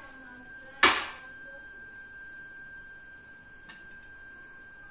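A steady, faint high-pitched tone throughout, with one sharp clack of a dish or utensil set down on a table about a second in, ringing briefly, and a light tick near four seconds.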